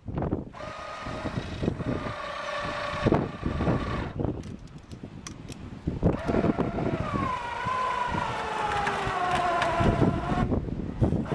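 Wind buffeting the microphone over the whine of a passing motor. The whine is steady for the first few seconds; a second whine then sinks slowly in pitch over about four seconds.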